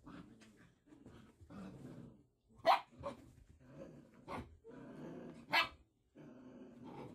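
Six-week-old Pyredoodle (Great Pyrenees cross) puppies play-fighting, growling almost throughout, with three short, sharp high barks, the loudest a little under three seconds in.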